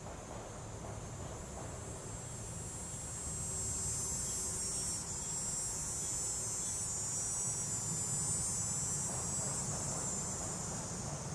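Chorus of insects giving a steady high-pitched shrill, which swells louder a few seconds in and holds.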